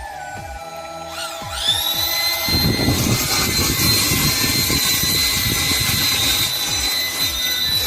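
Electric drill motor of a home-made well-drilling rig starting up, its whine rising and then holding steady. About two and a half seconds in, a loud rough churning noise joins as it drills.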